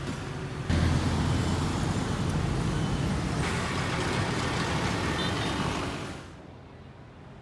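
Road traffic noise: a steady wash of engine and tyre sound. It gets louder just under a second in and fades after about six seconds.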